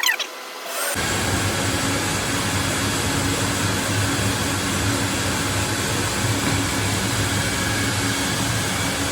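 Industrial vacuum of a rug-washing system starting up about a second in and then running steadily with a low hum, sucking the water down through the rug from underneath.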